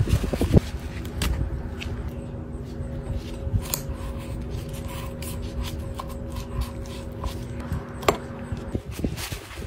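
Chef's knife cutting and scraping around raw chicken drumstick bones on a plastic cutting board, trimming the legs into lollipops, with paper towel rubbing and scattered sharp taps of the blade on the board. A steady low hum runs underneath and stops near the end.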